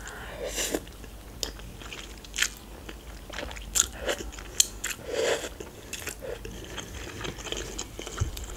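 Close-up mouth sounds of a person eating instant noodles: chewing with scattered short clicks and a few wet smears of sound.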